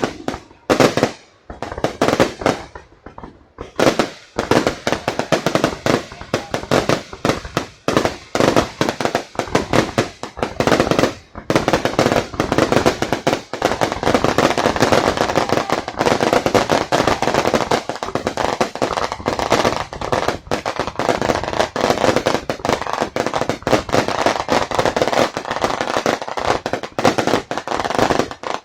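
Fireworks going off in a rapid, dense barrage of bangs and crackles. There are a few scattered bursts at first, then from a few seconds in an almost continuous volley.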